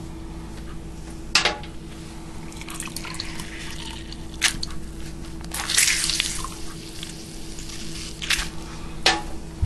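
A lemon squeezed by hand, its juice dripping and squirting into a glass jar of olive oil in several short wet spurts, with a longer squirt about six seconds in.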